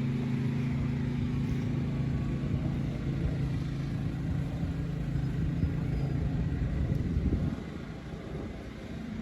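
An engine running steadily at a constant pitch, dropping back to a quieter, lower level about seven and a half seconds in.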